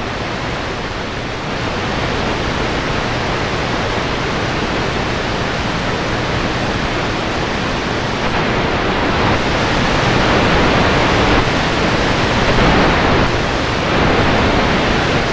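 Grundig S350DL shortwave receiver's AM static on the 11-metre CB band, a steady loud hiss of atmospheric noise (QRN) with no voice between CB transmissions. The hiss swells slightly about nine seconds in.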